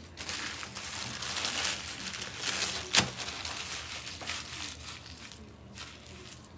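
A plastic bag crinkling as it is handled, with a sharp click about three seconds in. Under it is the fizz of a freshly poured carbonated drink's foam settling in a plastic cup.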